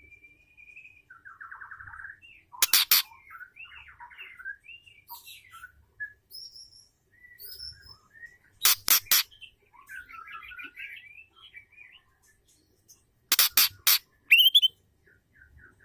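Female white-rumped shama calling: soft chirps, short buzzy trills and a few whistled notes, broken three times by loud runs of two to four sharp ticking notes.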